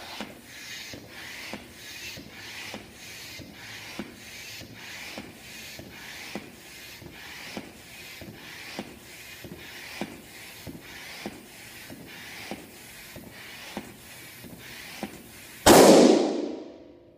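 Upright hand air pump worked in steady strokes, about three every two seconds, each pushing a hiss of air into a latex balloon with a small click. Near the end the overinflated balloon bursts with one very loud bang that rings briefly.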